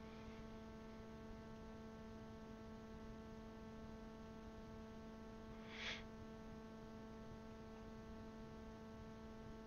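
Faint, steady electrical hum with a stack of even overtones on the recording, the room otherwise near silent. One short, soft rush of noise comes about six seconds in.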